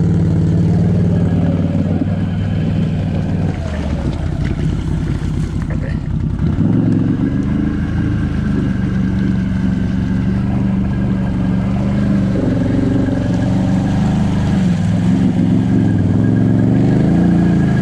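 ATV engine working at a crawl through deep mud, easing off a few seconds in, then picking up again and holding steady, with another rise and fall in revs near the end.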